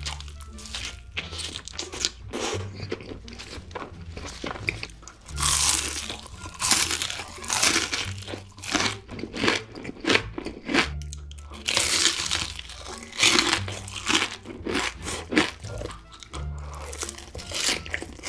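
Crunchy food being bitten and chewed, with runs of crisp crunches, loudest through the middle, over background music with a repeating bass line.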